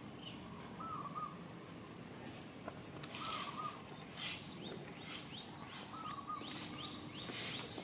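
Birds calling: a short, hooked double note repeated every two to three seconds, joined about three seconds in by a run of rapid, high, pulsing chirps.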